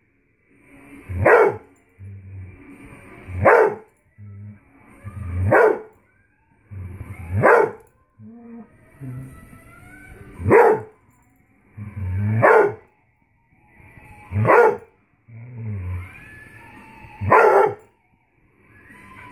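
A beagle barking at a toy, eight loud barks spaced about two seconds apart, each swelling to a peak.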